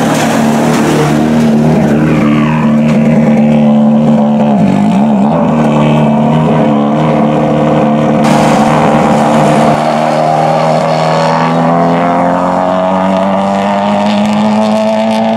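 Subaru Impreza WRC S14's turbocharged 2.0-litre flat-four engine running at low revs while the car moves slowly. The pitch wobbles briefly about five seconds in, and it climbs gradually over the last few seconds.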